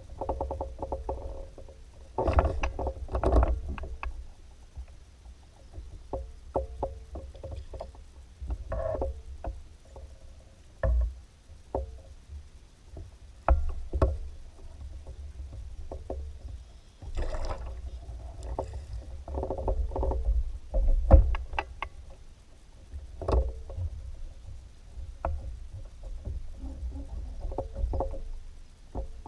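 Kayak on the water: irregular knocks and splashes against the hull over a steady low rumble.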